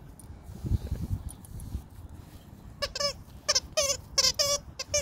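Squeaker in a plush sheep toy squeaking in short repeated squeaks, about two a second, as a vizsla puppy bites and chews it, starting about three seconds in. Before that, dull low thuds of the toy being tugged and handled.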